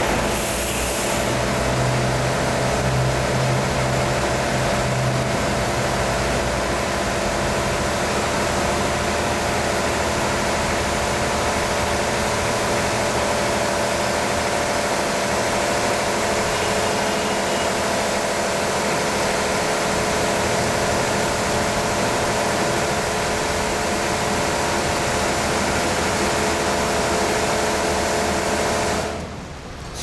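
Automatic car wash machine running: a steady hiss of spraying water over a steady machine hum, dipping briefly near the end.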